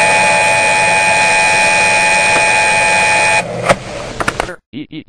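Loud harsh electronic static with several steady whining tones in it, which cuts off about three and a half seconds in into scattered crackles and clicks. Just before the end a stuttering synthesized voice starts up.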